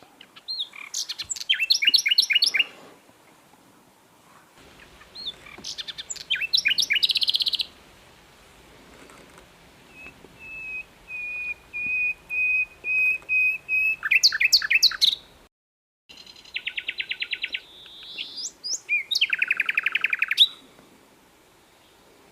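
Sikatan londo (a songbird flycatcher) singing a loud, varied song. Rapid rattling trills and high sweeping notes alternate with a long run of evenly repeated whistled notes. The sound cuts out completely for about half a second just past the middle.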